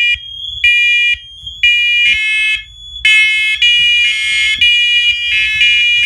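Several smoke alarms sounding together on test. Loud, high-pitched half-second beeps come in the three-beep temporal evacuation pattern, with the units soon falling out of step and overlapping, over a steady high tone from one of them.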